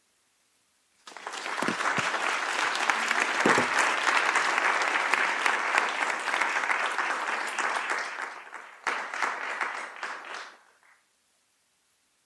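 Audience applause in a lecture hall. It starts about a second in, holds steady for several seconds, then thins out to scattered claps and stops about ten seconds in.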